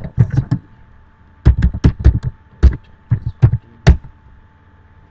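Computer keyboard keystrokes, sharp separate clacks typed in irregular bursts with short pauses between them.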